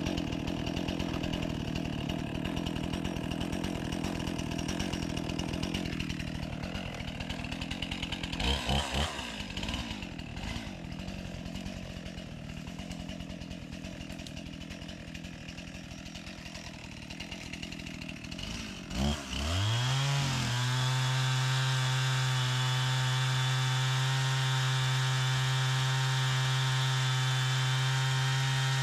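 Chainsaw engine running, with short throttle blips about a third of the way in. About two-thirds in it revs up and then holds steady at high speed.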